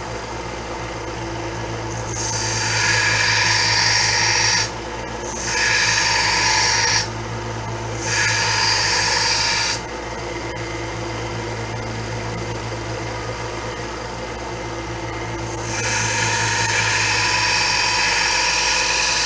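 Electric sander running steadily while a steel knife blank cut from a saw blade is pressed against it to grind the bevel. Four grinding passes add a loud, harsh hiss over the motor's hum, the last and longest near the end. Between passes the sander runs freely.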